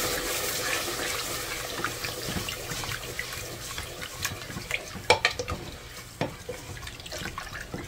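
Marinated kidney and liver pieces sizzling in hot oil and onions in an aluminium pressure cooker while being stirred with a wooden spoon. The hiss fades over the first few seconds, and in the second half the spoon knocks against the pot several times.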